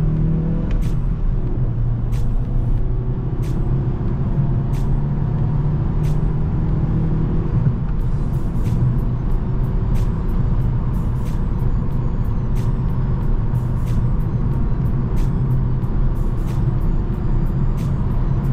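Car engine droning steadily with road noise, heard inside the cabin while driving. Faint sharp ticks run over it, spaced out at first and coming faster and less regularly after about eight seconds.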